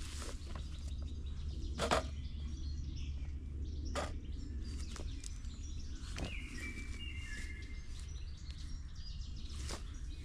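Several sharp clicks and knocks of things being handled and set down on a folding camp table, over a steady low rumble, with a few short bird chirps about two-thirds of the way through.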